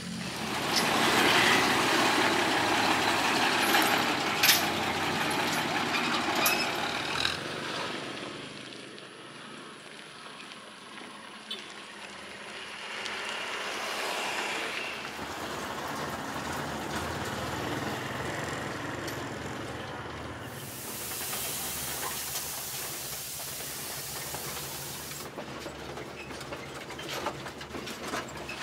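Soviet ZIL-164 truck driving, its six-cylinder petrol engine running under broad road and rattle noise that changes over several shots. The noise is loudest for the first several seconds, and a steady high hiss runs for about five seconds after the middle.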